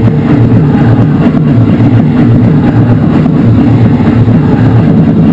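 Live harsh noise music: a loud, unbroken wall of distorted low rumble with a rapidly churning texture and no pauses.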